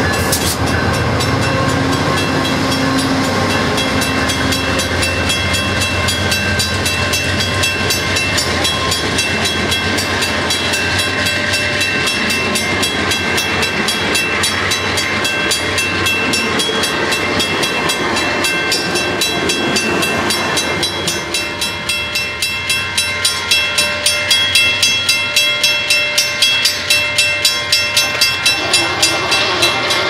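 Amtrak passenger train passing close by: steady rumble and rail noise from the locomotive and cars. From about two-thirds of the way in, a regular clacking of wheels over rail joints comes in at roughly two beats a second.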